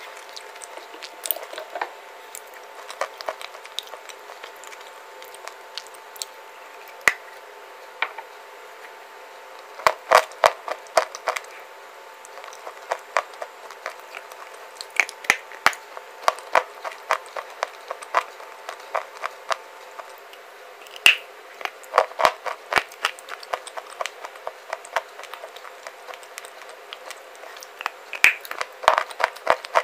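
Crunching bites and chewing of a white clay bar, a soft, powdery baked clay, in runs of quick sharp crunches with quieter chewing between.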